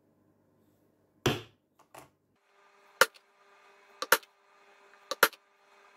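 Mallet striking a four-prong stitching chisel to punch stitching holes through a leather sheath into a wooden board: sharp knocks about once a second, some as quick double taps.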